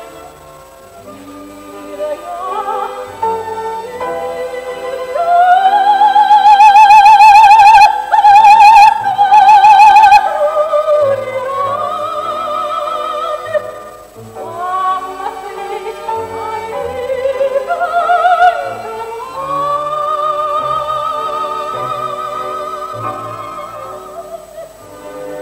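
Operatic soprano singing with a wide vibrato over chamber orchestra accompaniment. It is loudest on long held high notes from about five to ten seconds in, then continues more softly.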